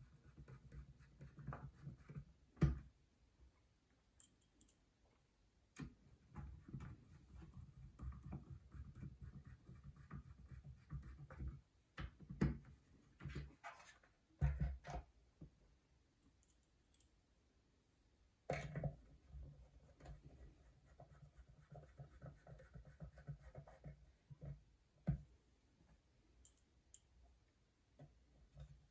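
Small hand-tool work on a Hudy starter box: scratchy clicking and scraping in stretches as its cover is put back and screwed down, with a few sharper knocks.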